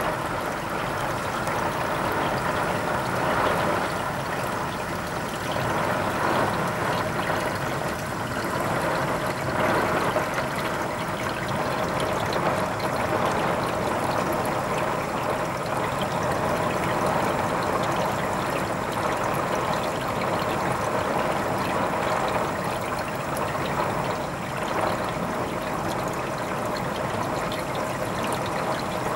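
Heavy rain pouring down, a steady hiss that swells and eases a little every few seconds.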